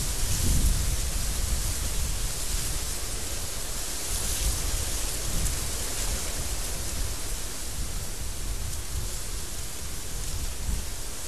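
Desert windstorm blowing hard: a steady hiss with gusts surging in the low end, strongest about half a second in.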